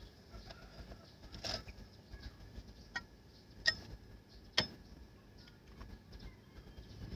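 A metal scoop clinking and knocking against the rim of an aluminium cooking pot as raw chicken feet are tipped into the water: scattered sharp clinks, the loudest two a second apart midway through.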